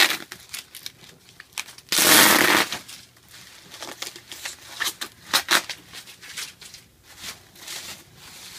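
Bubble wrap and packing tape being pulled off a wrapped box: crinkling and crackling of plastic, with one loud rip about two seconds in.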